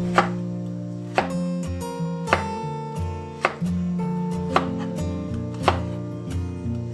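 Kitchen knife slicing through a bitter melon onto a plastic cutting board: a sharp tap of the blade on the board about once a second, over background acoustic guitar music.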